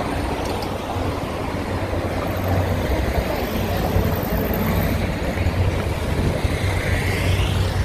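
Busy street traffic ambience: cars passing on the road, with a steady low rumble underneath.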